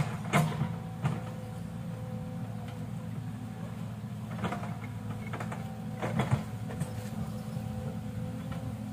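Hydraulic excavator's diesel engine running steadily, with a faint steady whine above it. Sharp metallic clanks come near the start and again about four and a half and six seconds in.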